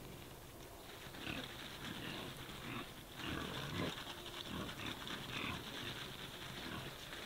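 A herd of black Iberian pigs grunting softly and irregularly.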